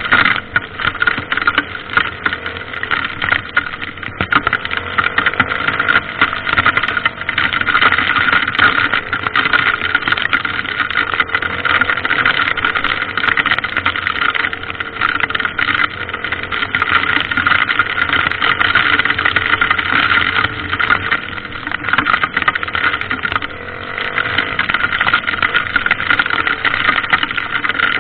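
Dirt bike engine running steadily under way, with rushing noise over it.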